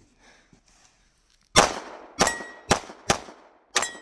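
Semi-automatic pistol firing five shots at an uneven pace, the first about a second and a half in, each shot trailing off in a short echo.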